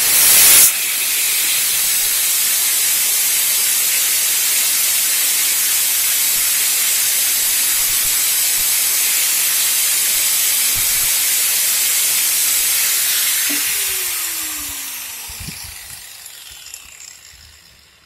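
Angle grinder fitted with a grinding-stone disc, not a cutting disc, grinding down the head of a motorcycle roller chain's link pin: a loud, steady hiss. About fourteen seconds in it is switched off and winds down with a falling tone.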